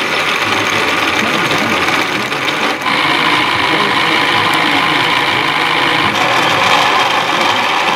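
Small electric motor whirring steadily, as from a model railway locomotive or layout mechanism running close to the microphone, with a brief dip about three seconds in.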